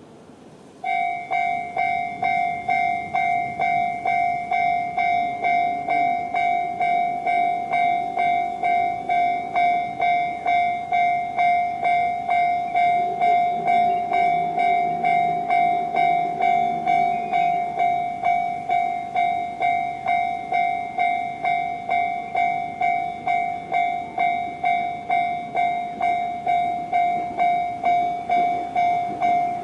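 Japanese railway level-crossing alarm sounding the JR-standard electronic bell tone. It starts about a second in and repeats as a quick, even series of dings.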